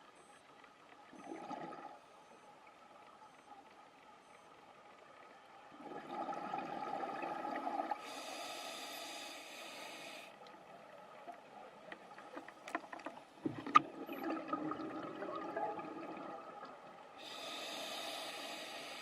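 Underwater scuba breathing through a regulator: bubbling rushes of exhaled air alternate with the high hiss of inhalations. About halfway through there are a few sharp clicks, one of them the loudest sound, followed by more bubbling.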